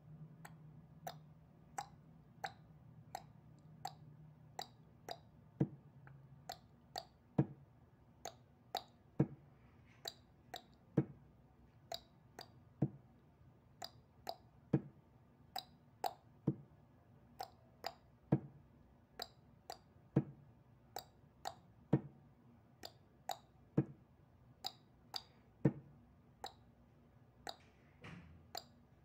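Steel open-end spanner clinking on the bolts of a refrigerant filter-drier housing's end cover as they are worked loose. The sharp metal clicks come about one to one and a half a second, not quite evenly spaced.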